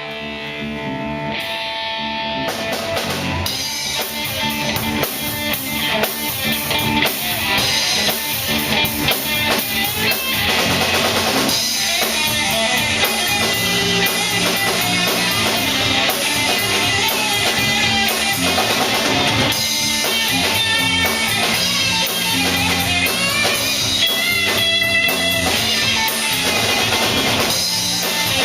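A live three-piece band playing: guitar opens alone, then drum kit and bass guitar come in about two and a half seconds in, the music building in loudness over the first several seconds and then holding steady.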